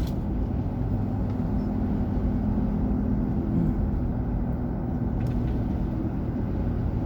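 Steady road and engine noise heard from inside a moving car, a constant low rumble with tyre hiss.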